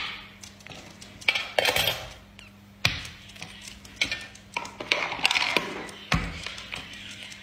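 Irregular light taps and clinks of coins and a plastic cap being picked up, set down and dropped by a lovebird on a hard tabletop and into a tin coin bank.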